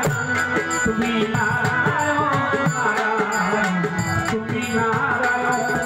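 Instrumental interlude of Bengali folk music: a violin plays a wavering melody over a steady hand-drum rhythm.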